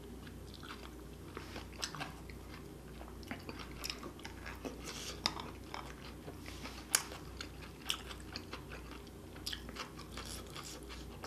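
Close-miked chewing of spicy stir-fried long-legged octopus: soft wet mouth sounds with scattered small clicks and smacks.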